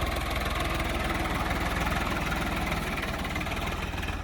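Heavy diesel engine running steadily, with a deep, even low throb.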